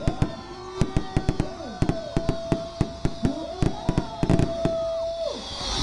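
Fireworks going off: many sharp firecracker bangs in a fast, irregular series, mixed with whistling fireworks whose tones slide down in pitch. One whistle holds steady from about two seconds in and drops away shortly before the end.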